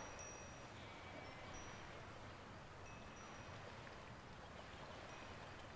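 Near silence: faint soundtrack hiss with a few faint, brief high-pitched chirps scattered through it.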